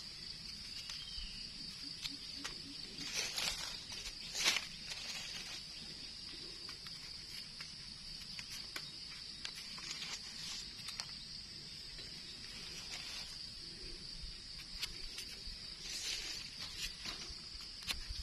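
A steady, high insect drone, with brief rustles and clicks of dry eucalyptus leaf litter and a knife as mushrooms are cut out and picked, loudest a few seconds in and again near the end.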